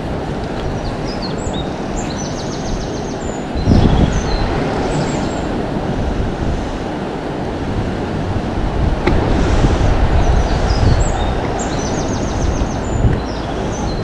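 Wind buffeting the microphone in low rumbling gusts over a steady rushing noise, with a songbird singing the same short twittering phrase with a quick trill twice, about a second in and again around ten seconds in.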